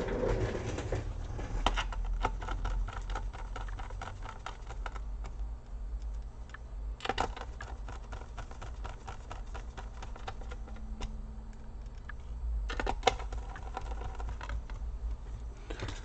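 Small clicks and taps of laptop parts being handled during reassembly: plastic covers and small parts being fitted and a small screwdriver working on screws. The clicks come quickly at first and grow sparser, with a few sharper snaps along the way.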